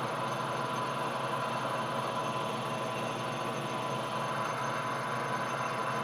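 Metal lathe running steadily while a knurling tool's wheels roll into a spinning Delrin rod, an even machine hum with a steady tone.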